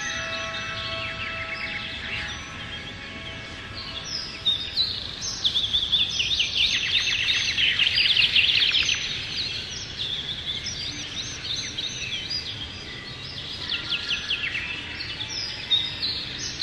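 Several songbirds singing at once, with rapid trills and chirps, busiest and loudest around the middle, over a steady background hiss. A few soft held tones sound under the birds at the start and again near the end.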